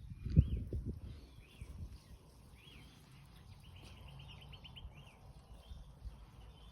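Wind buffeting the microphone in low gusts, loudest in the first second, then a steadier low rumble. Over it a small bird chirps again and again in short calls, with a rapid trill near the middle.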